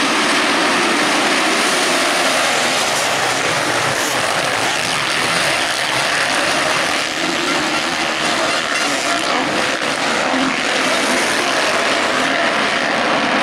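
A full pack of motocross bikes racing together, many engines running hard and blending into one dense, steady buzz.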